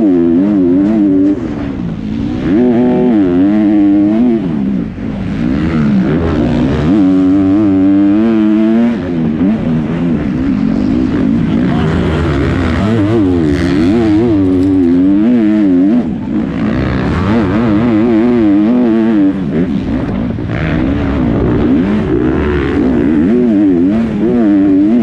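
Kawasaki KX250F 250cc single-cylinder four-stroke motocross bike racing, heard from on board, its engine pitch climbing and dropping again and again as the throttle is opened and closed and the rider shifts gears.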